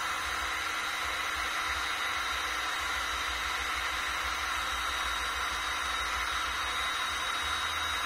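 Seekone electric heat gun running steadily, its fan blowing a constant rush of hot air with a faint high whine over it, while it shrinks heat-shrink crimp connectors.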